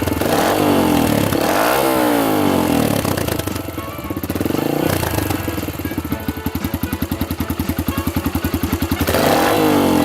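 Yamaha XTZ125's single-cylinder four-stroke engine through an aftermarket salami-cut silencer, revving up and dropping back, then settling to an even, rapid idle beat before revving again near the end.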